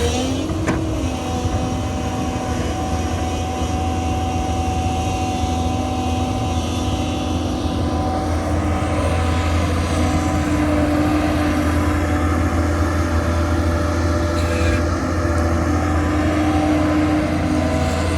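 Doosan excavator's diesel engine running steadily under working load, with small shifts in its pitch as the machine digs.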